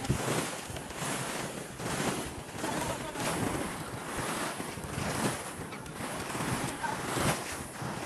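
Wind gusting over the microphone with small waves washing onto the beach, swelling and easing unevenly.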